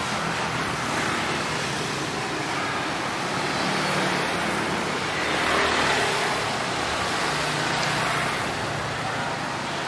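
Steady city traffic and road noise, an even rush of passing vehicles, swelling briefly about halfway through.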